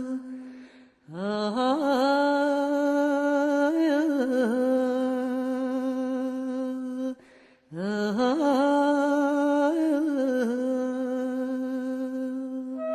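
A solo voice singing two long, held notes, each scooping up into the note and wavering in ornaments. The first begins about a second in, and the second after a short break just past the middle.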